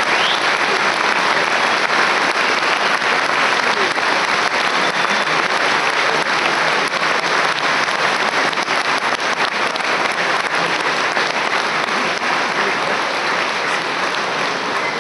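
Large stadium crowd applauding steadily, a dense unbroken patter of many hands clapping.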